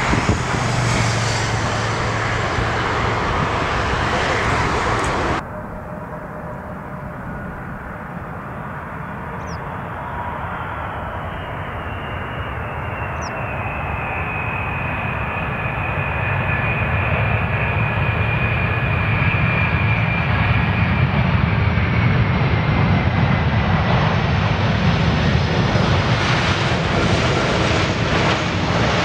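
Boeing 747 jet engines heard close up during landings. After a sudden cut about five seconds in, a high whine falls slowly in pitch while a low rumble builds and grows louder.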